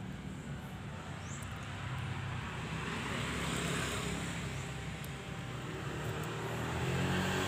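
Distant engine noise: a steady low drone with hiss, swelling slightly about halfway through and again near the end.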